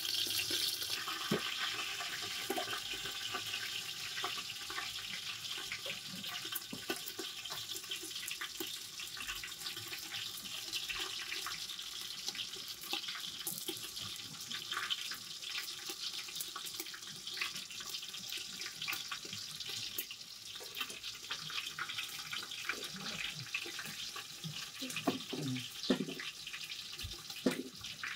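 Cooking sounds: a steady hiss, a little louder at the start, with scattered light clicks and scrapes of a knife and utensils, and a few louder knocks against the aluminium pots near the end.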